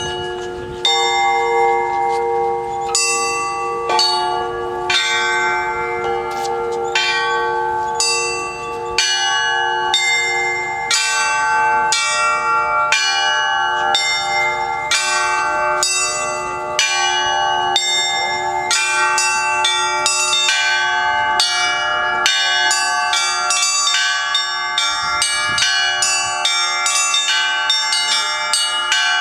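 Church bells being rung, several bells of different pitch struck in a peal over two deeper bells that keep ringing. The strikes come about once a second at first, then quicken to several a second about two-thirds of the way in.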